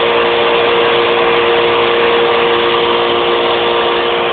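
Air compressor running steadily: a constant mechanical hum with a loud hiss.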